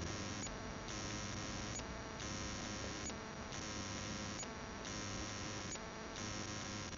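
Ghost-hunting spirit box app on a phone playing static. The static pulses in a steady cycle about every second and a third, each cycle starting with a small tick, over a faint hum.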